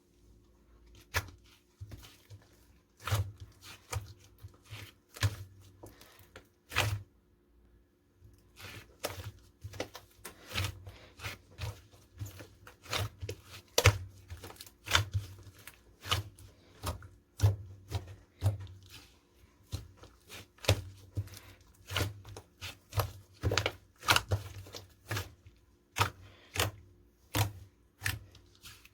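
Slime being squeezed, poked and stretched by hand, giving irregular sticky pops and clicks, often with a soft thud under them, at times several a second.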